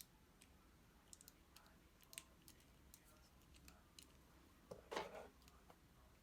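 Faint clicks and taps of small plastic doll parts being handled as a Nendoroid head is pressed onto the neck joint of an Obitsu body, with one louder click about five seconds in.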